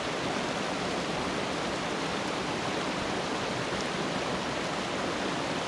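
Creek water rushing steadily over rocks as it pours into a pond, the creek swollen by recent rain and snowmelt.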